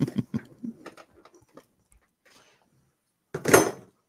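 Light clicks and knocks of pens and other small items being handled and rattled in a desk drawer, thinning out after about a second and a half. A short breathy sound comes near the end.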